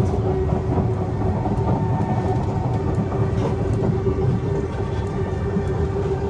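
Inside a moving C151 metro train: a steady low rumble from the wheels and running gear, with a steady hum held over it.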